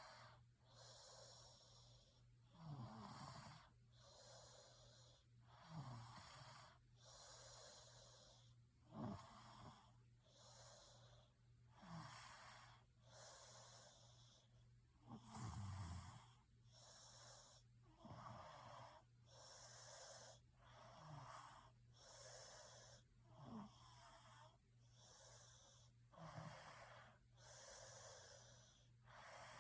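A person snoring in a regular rhythm, with a low snore about every three seconds alternating with airy, hissing breaths.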